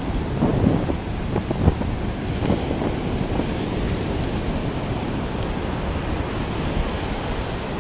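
Ocean surf washing on the beach, with wind buffeting the microphone. A few short knocks and bumps come in the first two seconds.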